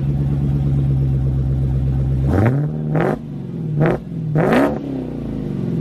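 Car engine sound effect from a car sounds app: a steady idle, then four quick revs a little over two seconds in, each rising in pitch and falling back to idle.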